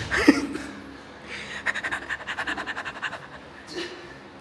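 A short grunt from a man exercising, then about a second and a half of fast scratchy rustling.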